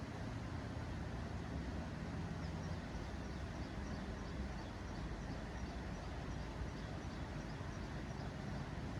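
Steady outdoor rushing noise, strongest in the low range, with a small bird's faint chirps repeated evenly, about three a second, through the middle.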